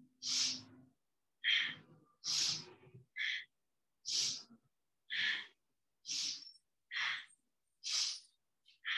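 A woman's quick audible breaths, in and out about once a second, each one short and sharp, paced to a repeated arm exercise.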